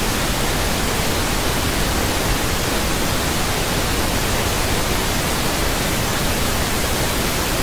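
Steady hiss of TV static, like an untuned analogue television, spread evenly across all pitches at a constant level.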